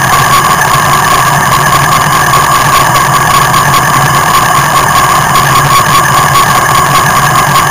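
Motorcycle engine running steadily at a standstill, heard close to the microphone, with an unchanging hum and no revving.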